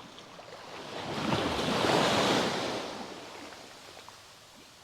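A wave rushing in and washing back out, swelling to a peak and fading away over a few seconds.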